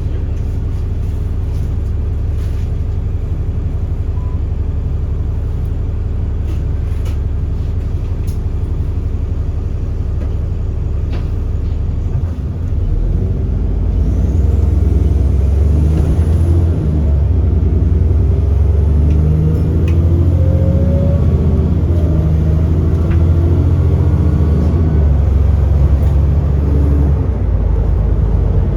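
Alexander Dennis Enviro400 double-decker bus engine idling steadily, with a few sharp clicks. About halfway through it pulls away and the engine runs louder, its note climbing and stepping through the automatic gearbox's changes, with a faint high whistle, until it eases off near the end.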